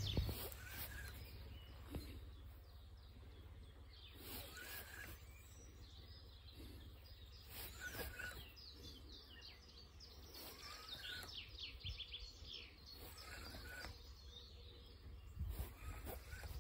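Faint birdsong: scattered short chirps and calls, with a quick trill of falling notes about eleven seconds in, over a low steady rumble.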